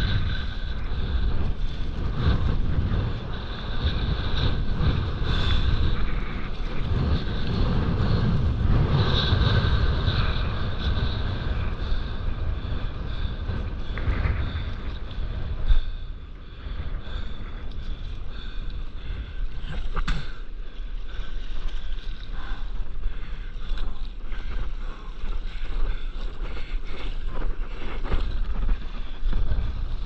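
Wind buffeting the microphone over water rushing and splashing past a stand-up paddleboard as it runs along a wave. There is one short, loud knock about halfway through.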